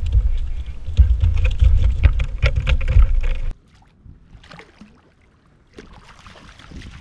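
Loud low rumbling with sharp knocks and clicks on the kayak, which cuts off abruptly about three and a half seconds in. Then quieter water splashing as a speckled trout is netted and thrashes in a landing net beside the kayak.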